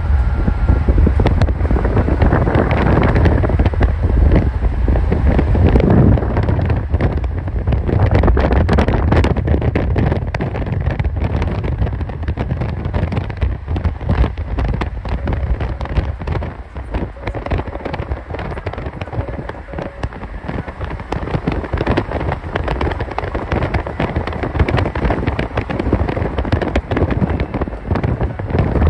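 Mercedes-Benz E63 AMG (W212) with its naturally aspirated 6.2-litre V8, driven at highway speed: a deep steady engine and road rumble under heavy wind rush. Dense crackling runs through the middle.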